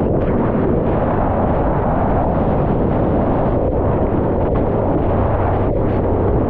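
Loud, steady rushing noise of wind and big-wave whitewater buffeting a surfer's head- or board-mounted camera microphone, deep and unbroken with no voices.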